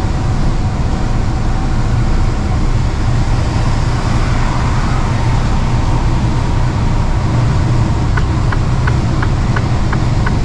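Steady low engine and road drone inside the cab of a Mercedes-Benz Actros truck driving on the motorway, picking up speed slowly. Near the end a run of light, evenly spaced ticks comes in, about three a second.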